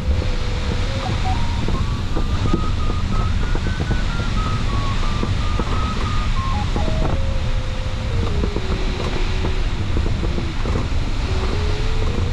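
Sailplane variometer tone changing pitch in small steps over steady cockpit airflow noise. It climbs higher in the first few seconds, drops low around the middle, then rises again near the end. The pitch follows the climb and sink rate as the glider circles in weak, uneven lift.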